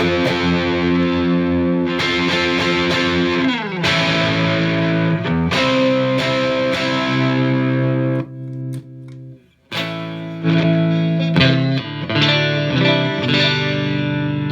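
Strat-style partscaster electric guitar with an Ibanez RS440 body and Squier neck, played through a Marshall JVM210 combo amp with distortion: ringing chords, a pitch dip about four seconds in, a short break past the middle, then more chords.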